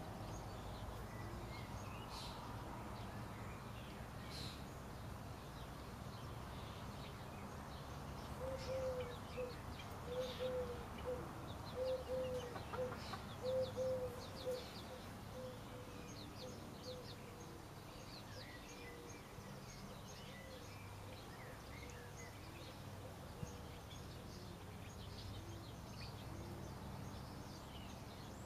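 Chickens in a coop: a hen gives a run of soft low clucks, about two a second for several seconds, that fade away, over faint high peeping chirps and a steady outdoor background hum.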